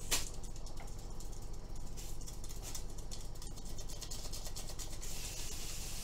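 Gloved hand rubbing over a repair patch on the inside of a car tyre: a click, then a run of short scratchy strokes. A steady hiss starts about five seconds in.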